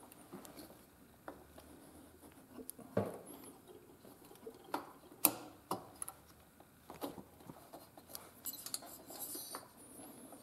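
Scattered light clicks and knocks of a motorcycle carburetor being worked by hand into a stiff rubber intake boot, metal and rubber parts bumping as it is pushed into place. The sharpest knocks come about three and five seconds in.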